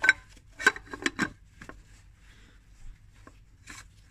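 Plastic oil filter housing being handled and screwed back on by hand, giving a series of sharp clicks and knocks, several in the first second and a half and a few more near the end.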